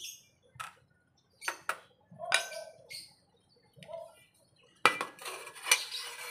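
A few scattered knocks and scrapes of a wooden spatula against an aluminium mess tin while stirring noodles, then, about five seconds in, a loud clatter and rattle of the tin's aluminium lid being set and fitted on.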